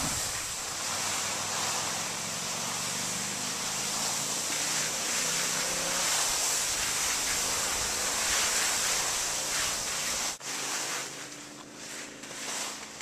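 Steady rushing hiss of skis sliding over granular spring snow while skiing downhill, mixed with wind on the microphone. It breaks off sharply about ten seconds in and drops to a quieter hiss.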